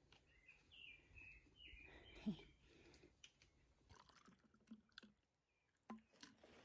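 Quiet forest air with a few faint bird chirps early on, a single sharp knock a little over two seconds in, then soft scattered clicks of plastic water bottles being handled as water is poured from one into another.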